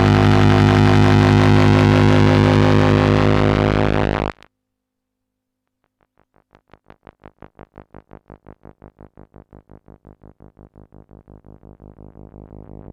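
Electronic synthesizer drone: a loud, dense, steady chord that cuts off suddenly about four seconds in. After a short silence it returns as a quieter pulsing tone, about five pulses a second, that grows louder near the end.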